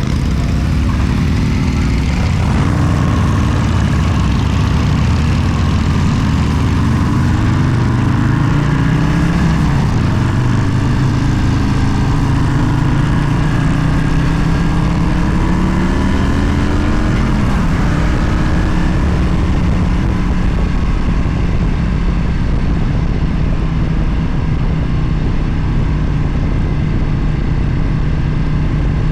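Motorcycle engine running under way, its pitch climbing several times as it accelerates, then holding steady for about the last third.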